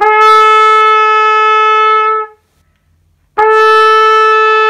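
Trumpet playing the scale's B (シ), fingered with the second valve alone and lips pulled tight, as two steady held notes. The first is tongued and lasts about two seconds, and after a short break the second starts with a crisp attack and is still sounding at the end.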